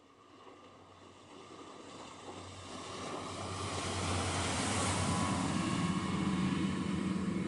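Twin 270 hp Nanni diesel engines of a 9.5 m motor tender running at planing speed, a steady low drone, with water rushing and spraying off the hull. It grows louder over the first four seconds, then holds steady.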